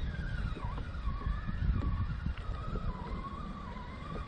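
Electric motor of a motorized kayak whining steadily, its pitch sliding down early and then wavering, under heavy wind buffeting on the microphone.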